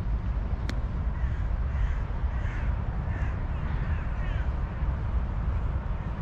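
Birds calling: a run of short repeated calls between about one and four and a half seconds in, over a steady low rumble. There is a single sharp click just under a second in.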